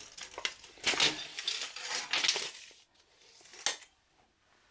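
Steel tape measure being reeled in: the blade scrapes and rattles back into its case for about three seconds, then a single sharp click, likely the hook catching against the case.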